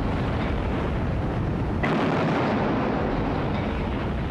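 Heavy naval gunfire and explosions: a dense, continuous rumble, with a fresh blast breaking in about two seconds in.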